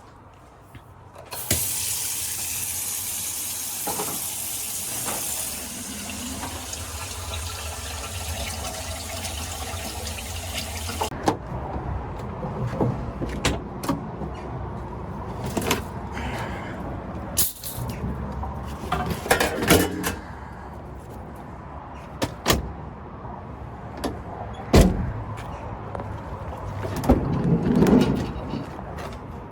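Water running hard into a sink, a steady hiss that starts suddenly and cuts off after about ten seconds, followed by a low rumble with scattered knocks and clatters.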